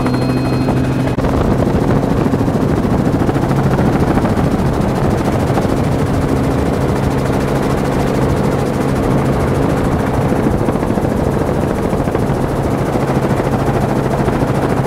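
Helicopter rotor and engine running steadily in flight, heard from inside the cabin: a loud, continuous drone with a steady low hum.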